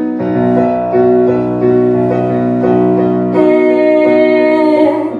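Piano playing sustained chords, a short instrumental passage between sung lines of a slow ballad.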